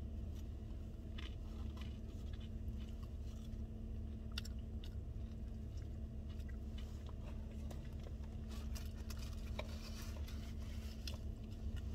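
A person chewing and biting into a tortilla wrap close to the microphone, with scattered small clicks and crunches, over a steady low hum.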